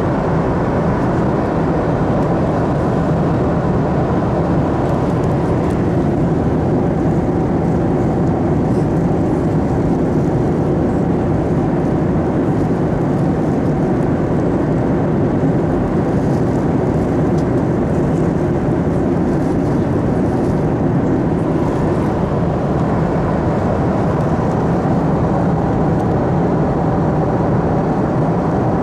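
Steady cabin noise of a Boeing 737-300 at cruise, heard inside the cabin: the even rush of airflow and the CFM56 turbofan engines, with a faint steady whine underneath.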